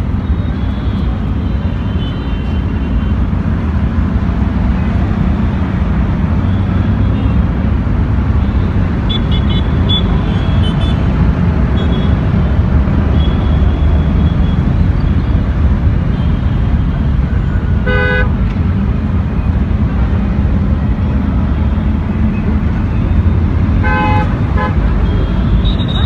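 Busy city road traffic at an intersection: a steady low rumble of motorcycle, auto-rickshaw, car and bus engines, with short horn toots now and then and two louder honks, one about two-thirds of the way through and another near the end.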